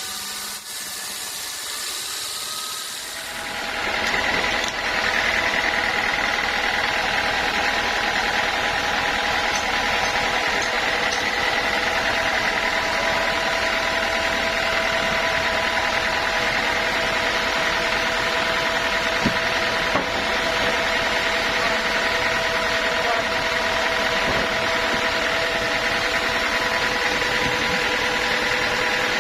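Sawmill machinery running steadily, with a whine of several steady tones. It swells about four seconds in, replacing a thinner, hissier sound, then holds level.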